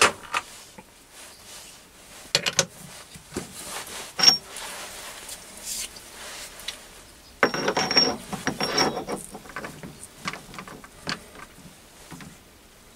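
Metal clinks, knocks and scraping as a steel workpiece is handled in a four-jaw lathe chuck with the lathe stopped: the part is taken out of the jaws and a short steel piece is fitted back. One sharp clink with a brief ring comes about four seconds in, and a longer spell of rattling clatter comes around eight seconds.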